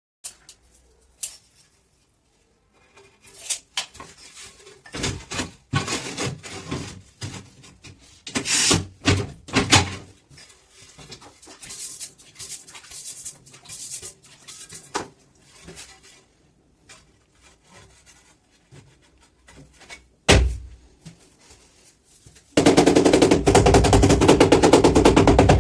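Irregular knocks, scrapes and clatter of building work. About three seconds before the end, a power hammer drill starts up with a loud, rapid, continuous hammering.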